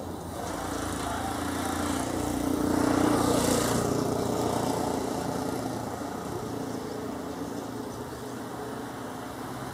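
Cessna 208B Grand Caravan's single PT6A turboprop engine running at takeoff power during the takeoff run and lift-off. The sound is loudest about three seconds in, then fades as the aircraft moves away.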